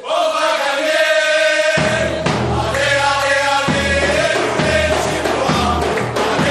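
Espérance supporters' song: a group of voices singing a chant together in long held notes, with a drum beat coming in about two seconds in.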